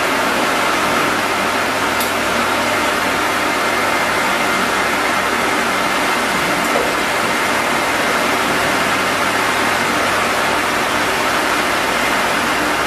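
Fully automatic wood lathe running steadily, a loud even machine noise with a faint high steady tone, and one short click about two seconds in.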